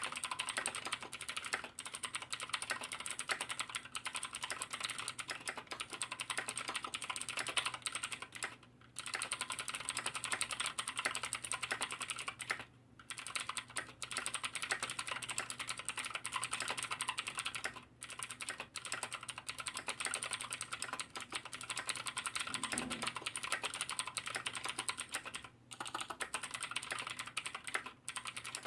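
Fast continuous typing on a Davinci SPAKY mechanical keyboard with stock KBTalking Blue clicky switches: a dense stream of key clicks and clacks, broken by brief pauses about 9, 13, 18 and 25 seconds in.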